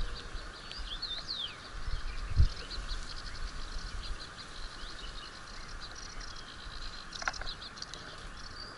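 Small birds chirping and twittering over a steady hiss, with one dull thump about two and a half seconds in.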